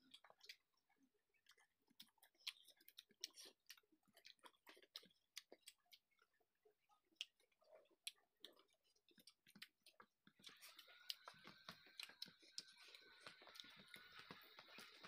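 Close-miked chewing and lip-smacking of people eating rice and curry by hand: a string of quiet, irregular wet clicks and smacks. About ten seconds in, a faint steady hiss with a high whine joins underneath.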